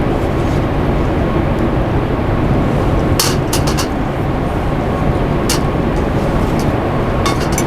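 Steady low rumbling noise, with several light, sharp clinks: a cluster about three seconds in, one near the middle and two more near the end.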